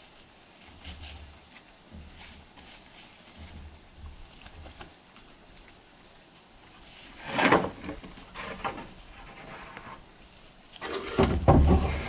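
Wooden planks being handled: a wood-on-wood knock about seven seconds in, then from about eleven seconds a plank scraping and knocking as it is slid across the top of the wooden floor frame.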